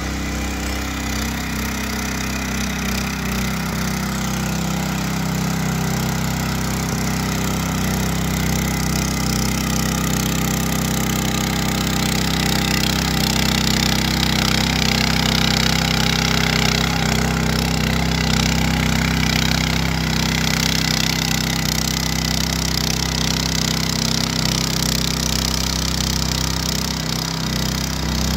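Petrol engine of a Ruris 751KS walk-behind tiller running steadily under load while its eight tiller blades churn through the soil, louder in the middle as the machine comes close and fading a little as it moves off.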